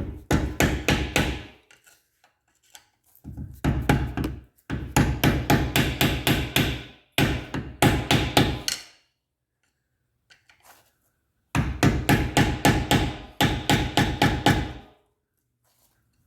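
A sledgehammer striking metal in quick runs of blows, about five or six a second, with a ringing note after each strike. The runs are broken by short pauses, the longest about two seconds in and in the middle. This is the hammering used to knock the staked collar of a BMW front axle nut out of the way before the nut comes off.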